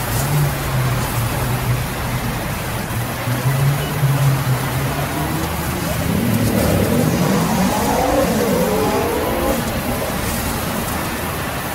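Large sawmill band saw running with a dense rushing noise and a steady low hum as boards are fed through it. Partway through, a pitched sound rises and falls over the machine noise.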